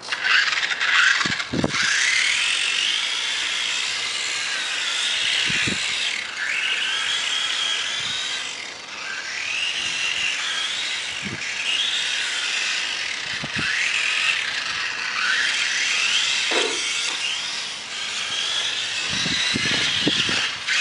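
Electric motor of a radio-controlled car whining as the throttle is worked, the pitch rising again and again every second or two, over a hiss of water spray as the tyres run through puddles.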